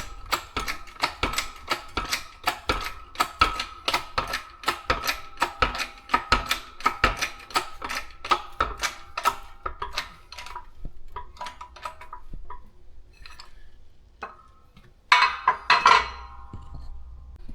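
Shop press being worked to press a ball joint through a steering knuckle: rapid metallic clicking with a ringing tone, about three clicks a second, thinning out after about ten seconds. A loud metallic clatter with ringing about fifteen seconds in.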